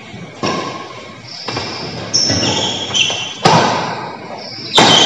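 Badminton rally in a hall: sharp racket strikes on the shuttlecock, about one a second and loudest near the end, with short high squeaks of players' shoes on the court floor between them.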